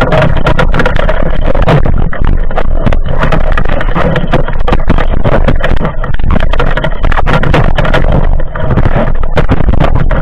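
Underwater: water rushing over an action camera's housing, with many quick clicks and knocks as a spearfishing diver swims and handles the speargun.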